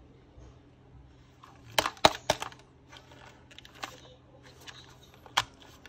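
Sharp plastic clicks and taps from handling a clamp meter: its rotary selector dial being turned and the plastic case turned over in the hands. A handful of separate clicks, three close together about two seconds in, then a few more spread out.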